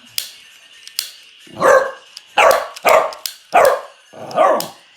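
Maltipoo barking five times in quick succession, after two sharp clicks in the first second.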